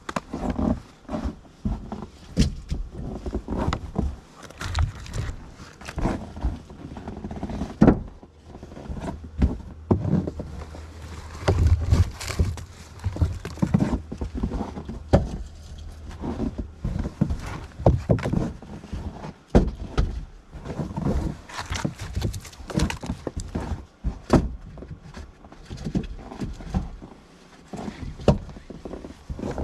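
Pieces of firewood knocking and clunking against each other and the wood as they are stacked into a wooden wood box, an uneven run of sharp knocks.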